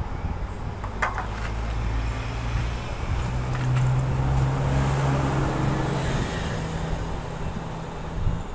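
A motor vehicle going past: a low engine hum and road noise that swell to a peak midway and then fade. There is a light clink about a second in.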